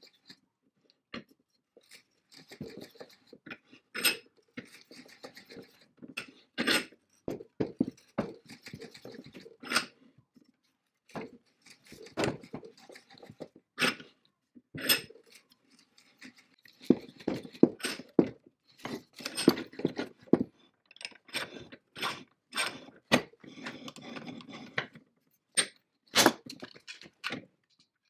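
Hand-cranked drill of a Rock Island Mfg. Co. cast-iron vise-drill-anvil combination tool boring through a wooden block. Irregular sharp clicks and knocks from the cranked mechanism, with stretches of scraping as the bit cuts.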